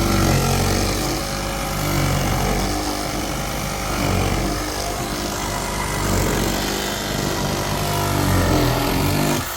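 Power saw running steadily while cutting, its pitch and loudness easing and swelling a little, then stopping abruptly near the end.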